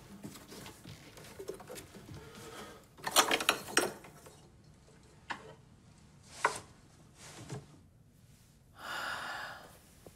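Rummaging through a box of Christmas decorations: a cluster of clinks and rattles about three seconds in, then a few single clicks. Near the end there is a short breathy sound.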